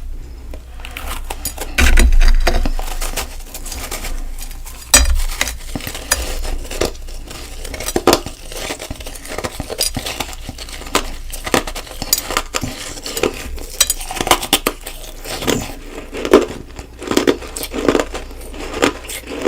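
Crunchy freezer-frost ice snowballs crunching and clinking against a dish, with heavy knocks about two and five seconds in and a run of repeated crunches near the end.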